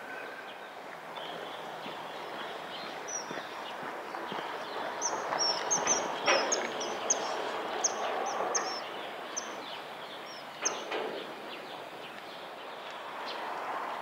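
Common kingfisher calling: a run of short, high, sharp whistled notes, several a second, thickest in the middle. Under it runs a steady background rush that swells and fades.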